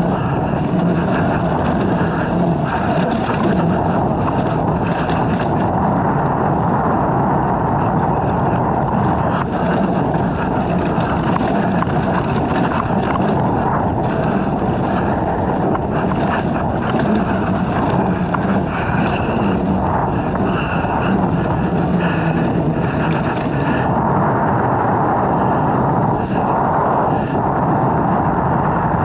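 Dirt bike engine running as the bike is ridden along a trail, with a steady noise of engine and wind on the microphone.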